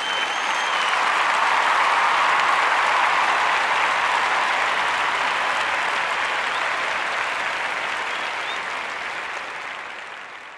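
Crowd applause sound effect with a brief whistle near the start. It swells up quickly and then slowly fades away.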